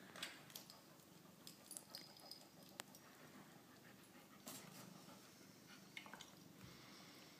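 Near silence with faint, scattered sounds from an Alaskan Malamute: a few soft clicks and light noises spaced irregularly.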